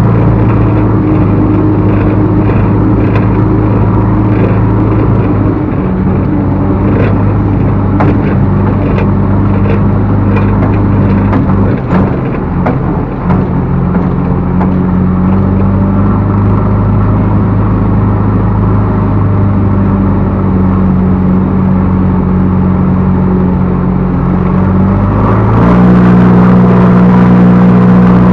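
Backhoe loader's diesel engine running under load, its pitch shifting as it works, with scattered sharp knocks through the middle. The engine revs up and gets louder near the end.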